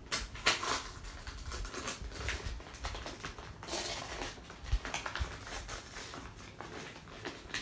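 Gift-wrapping paper being peeled from its tape and torn open by hand, a run of irregular crackles and rustles.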